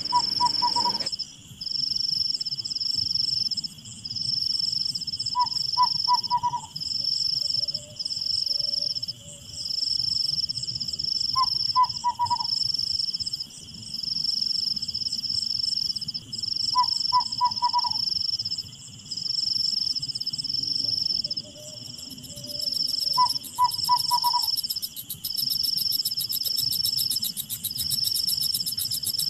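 Night insects trilling loudly in long high-pitched pulses, one after another with short breaks. Four times, about six seconds apart, a short harsh bird call cuts in.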